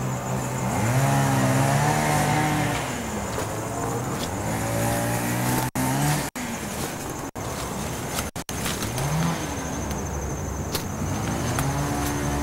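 A motor revving up and down over and over, its pitch rising and falling in slow arcs. The sound cuts out for an instant several times around the middle.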